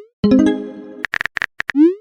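Texting-app sound effects: a short chime-like tone of several pitches that fades over most of a second, then a quick run of keyboard-tap clicks and a rising swoop, the sounds of a message being typed and sent.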